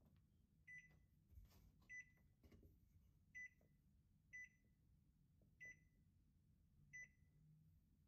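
Key beeps from the touch control panel of a Bosch HMV8053U over-the-range microwave: six short, high beeps about a second apart, each confirming a key press as the settings are stepped through.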